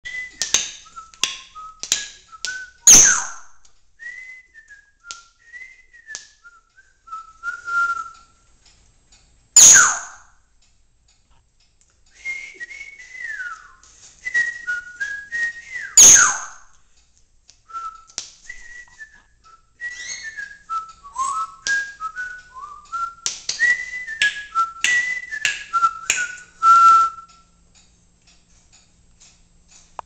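Timneh African grey parrot whistling short phrases of stepping and gliding notes with clicks between them. The whistling is broken by three loud screeches, about three, ten and sixteen seconds in.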